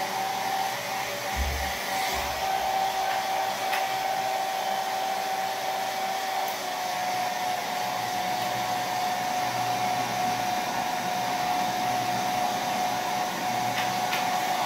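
Handheld hair dryer running steadily, blowing hot air through thick Afro-textured hair: an even rush of air with a steady whine.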